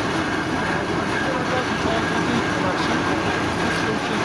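Ruston steam navvy working under steam: a steady mechanical clatter with a thin, steady whine running through it.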